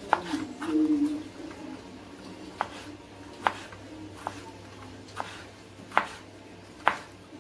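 Kitchen knife slicing a tomato on a plastic cutting board, each cut ending in a sharp tap of the blade on the board, irregularly about once a second. A short low hum comes just under a second in.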